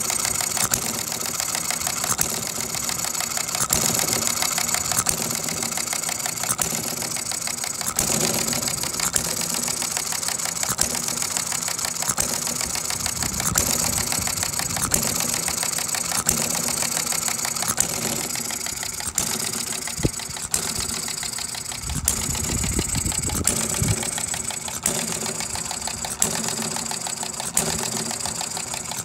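Topsy Turvy inverted hit-and-miss model gas engine running: a fast steady clatter of its small moving parts, broken by sharp firing pops at uneven intervals of about a second as it hits and coasts.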